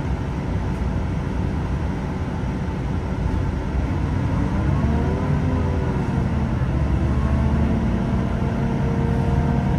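Underfloor diesel engines of a Class 166 diesel multiple unit running with a low rumble, heard from inside the carriage. About halfway through the engine pitch rises as they rev up, and the sound grows gradually louder.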